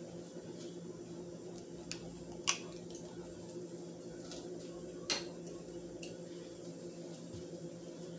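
A few sharp clinks of a utensil or dish against a plate while food is being plated: the loudest about two and a half seconds in, another about five seconds in. A steady low hum runs underneath.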